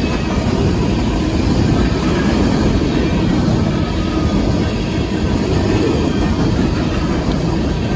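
Union Pacific coal train's freight cars rolling steadily past a grade crossing, a loud, continuous, mostly low-pitched rolling noise of wheels on rail.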